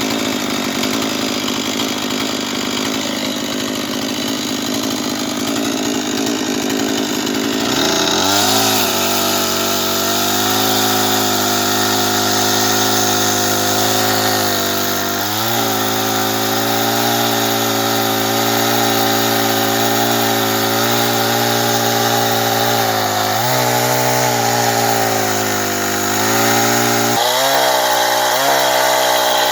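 Two-stroke chainsaw cutting logs: the engine runs at a lower pitch, climbs to high revs about eight seconds in, then holds there with a few brief dips in pitch as the chain bites into the wood.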